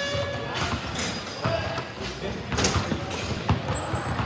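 Basketball thudding on the rim and bouncing on a hardwood gym floor, about four separate thuds, over an echoing gym background, with a brief high squeak near the end.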